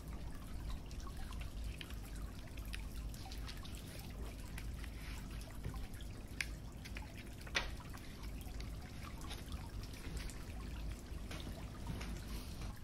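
Paper card being handled and folded: scattered light ticks and taps, two of them sharper about six and seven and a half seconds in, over a steady low hum.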